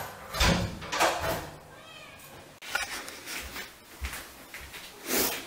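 Siamese cats meowing loudly, several calls in a row, with small knocks and rustling as the camera is picked up.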